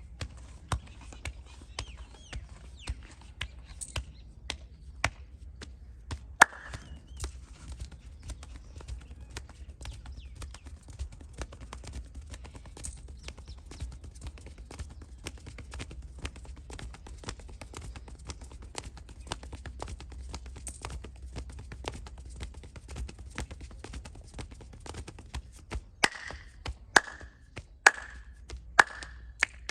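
Massage hand percussion: rapid, light tapping strokes of the masseur's hands on the head and back, with a few louder, sharper slaps about once a second near the end.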